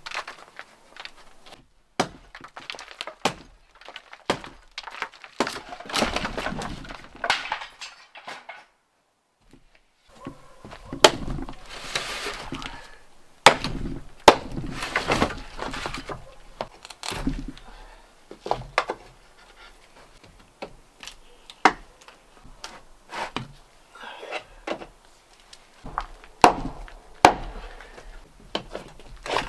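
Hand-tool renovation work: a long run of sharp knocks and cracking impacts, with scraping and rubbing between them, as material is struck and broken apart. The work pauses briefly about nine seconds in.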